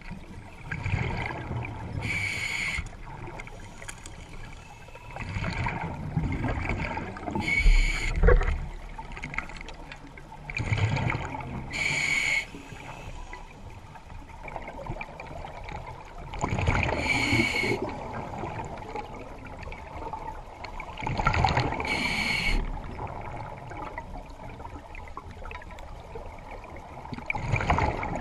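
Scuba diver breathing through an open-circuit regulator underwater: a bubbling exhale and then a hissing inhale, one breath every four to five seconds. A louder low thud comes about eight seconds in.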